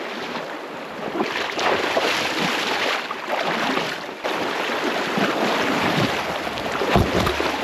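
Water splashing and rushing around a kayak as it is paddled, in uneven swells, with wind buffeting the microphone.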